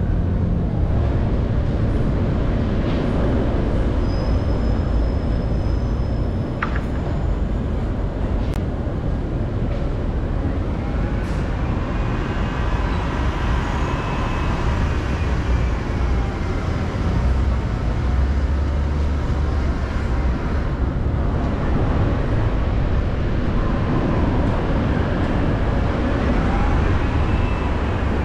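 Steady traffic and road noise of a car driving slowly along a city street, a constant low rumble and hiss. A faint whine rises and then falls in pitch through the middle stretch, and again near the end.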